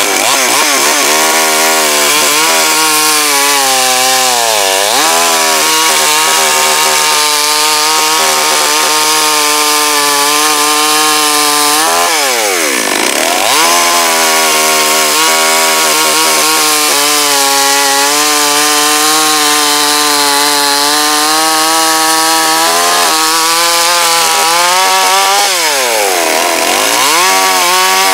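Two-stroke petrol chainsaw with an Oregon chain, held at high revs while cutting wood. Its engine pitch dips sharply and climbs back three times, about four, twelve and twenty-six seconds in.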